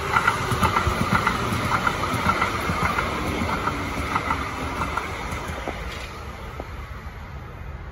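Calgary CTrain Siemens-Duewag U2 light rail cars rolling past close by, the wheels clattering over the track with many quick clicks. The sound is loudest at the start and fades steadily as the train moves away.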